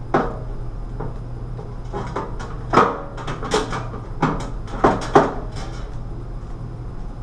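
Mirrored medicine cabinet door being swung open and shut, knocking and clicking against its frame about six times at irregular intervals. The hinges have just been adjusted and the door's fit is being tested.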